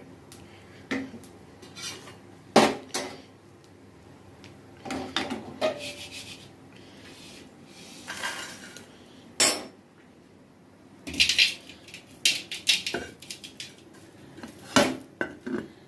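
Metal kitchenware clinking and scraping: a kadai and spatula knocking against a steel plate a dozen or so times as dry-roasted dried shrimp are scraped and tipped out, with a rustle of the brittle shrimp sliding onto the plate a little past the middle.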